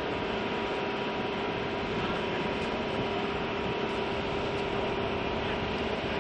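Steady drone of a running military aircraft on the apron, an even rushing noise with a held low hum.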